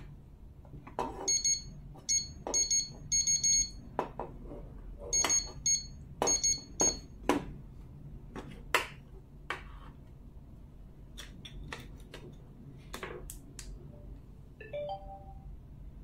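Fingerprint door lock's electronic buzzer giving about six short, high beeps in the first seven seconds, mixed with sharp clicks and taps as the lock is handled.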